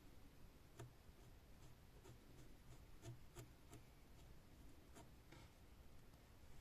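Near silence with faint, scattered light clicks and soft rubbing, a few ticks a second at times: hands wiping dust off the laptop's CPU surface.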